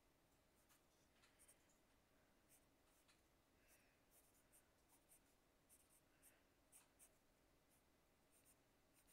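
Faint scratching of a pencil sketching on paper, in short irregular strokes.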